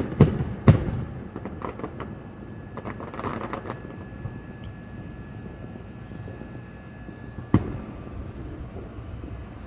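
Aerial fireworks going off: a few sharp bangs in the first second, a scatter of smaller pops and crackles from about two to four seconds in, then another loud bang about seven and a half seconds in.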